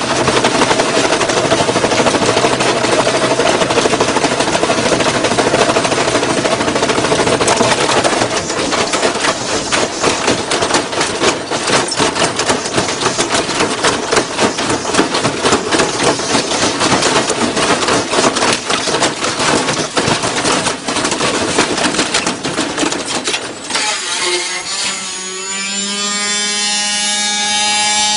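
Washing machine running with bricks and metal pieces in its drum: dense, loud clattering and banging. About 24 seconds in the banging stops and a whine with several pitches rises and then holds steady.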